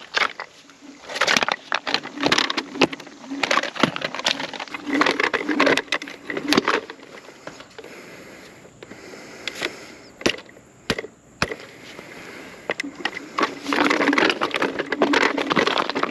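Varla Eagle One electric scooter riding over rock and loose gravel: its knobby tyres crunch and grind on stones, with many sharp knocks and clacks as it bounces over rocks. There are quieter spells in the middle, and the crunching is densest near the end.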